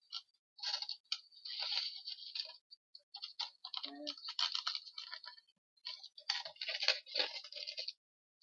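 Dried herbs and whole cloves crackling and scraping as they are scooped off a styrofoam plate into a small drawstring sachet, in irregular spells of dry rustling and clicking.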